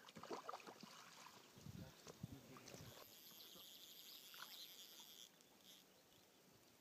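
Near silence: faint outdoor ambience with a few soft, faint knocks about two seconds in, going fully quiet near the end.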